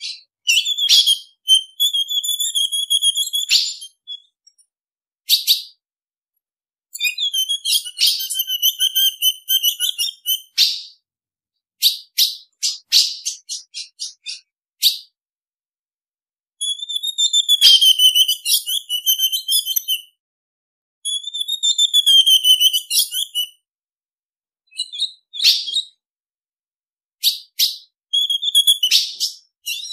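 Female ultramarine grosbeak (azulão) calling, the female call used to stir a male azulão. It gives quick series of sharp, high chip notes and longer wavering high calls, in bouts of a few seconds with short silent pauses between them.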